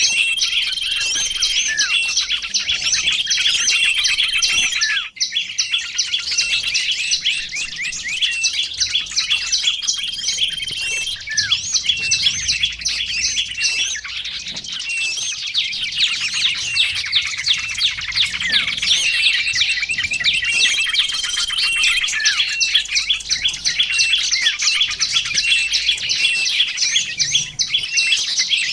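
A dense chorus of small songbirds chirping and twittering at once: many quick, high, overlapping calls with short whistled notes mixed in, broken by a brief gap about five seconds in.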